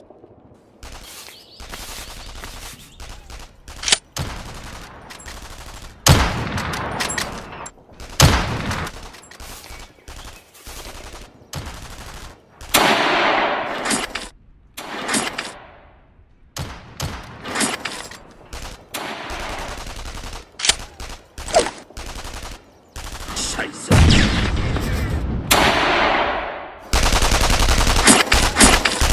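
Battle sound effects of gunfire: scattered single rifle shots and short bursts of machine-gun fire, ending in a long fast burst of machine-gun fire.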